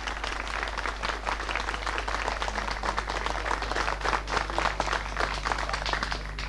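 An audience applauding, a dense patter of many hands clapping that fades off near the end.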